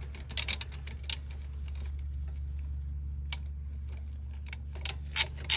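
Ratchet wrench clicking as caliper bolts on a rear brake are tightened: a short run of clicks early, a lone click in the middle, then a quicker run of evenly spaced clicks near the end, over a steady low hum.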